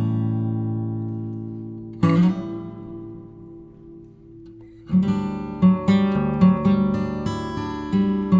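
Background music on acoustic guitar: a chord rings out and fades, another is struck about two seconds in and fades, then a steady picked rhythm starts about five seconds in.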